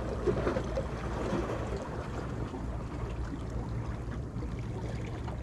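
Steady wash of sea water against shore rocks, an even rushing noise.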